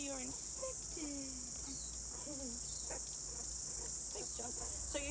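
Meerkats giving soft contact calls, short chirps and falling peeps every second or so. These are the calls they keep up all day to check in with one another. Behind them runs a steady high chorus of crickets.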